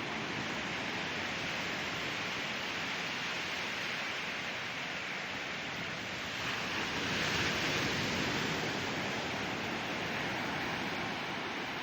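Ocean surf washing onto a beach: a continuous rushing hiss of breaking waves, with one wave swelling louder about seven seconds in and then easing back.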